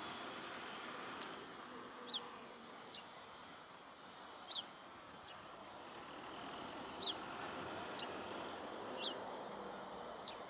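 A small bird calling: short, sharp high chirps that fall in pitch, repeated about once a second, over a steady hiss of outdoor background noise.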